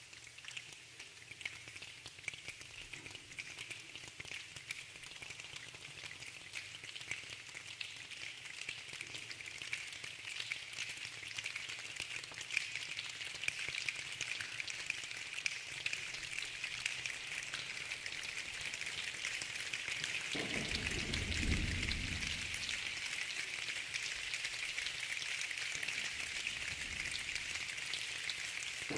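A large choir imitating a rainstorm with their hands: a dense patter of finger snaps and rubbing that thickens steadily, joined about twenty seconds in by a heavier low drumming like a downpour.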